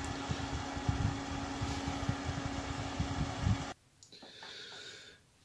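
Noctua NF-P12 redux 120 mm case fan running at full speed: a steady hum of moving air with one steady tone in it. The sound cuts off suddenly a little under four seconds in.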